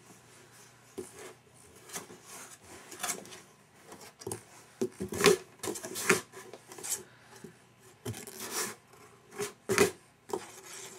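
Cardboard box rubbing and scraping in irregular bursts as a baby moves around inside it and grabs the box's edge, loudest about five seconds in and again near the end.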